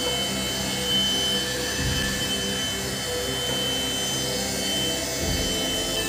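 AGARO cordless handheld car vacuum cleaner running steadily: a rushing airflow with a high, even motor whine, as its nozzle is worked over a leather car seat. Two low thumps come about two and five seconds in.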